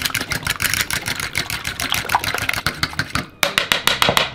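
Metal fork beating eggs in a plastic bowl: fast, even clicking of about nine or ten strokes a second, with a brief pause just over three seconds in before a few more strokes.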